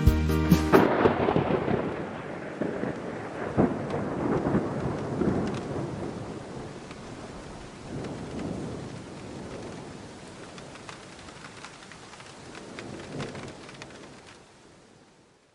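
Steady rain with rolling rumbles of thunder that swell a few times and slowly fade out. The last notes of music stop about a second in.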